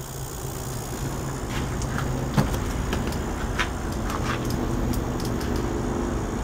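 Hermetic refrigerator compressor running with a steady low hum, pumping air because it holds no refrigerant. One sharp click about two and a half seconds in, with a few fainter clicks.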